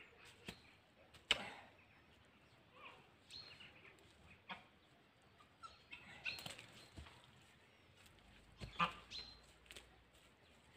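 Faint, scattered rustles and knocks of hand work in soil and among rose stems, with two sharper knocks, one about a second in and one near nine seconds.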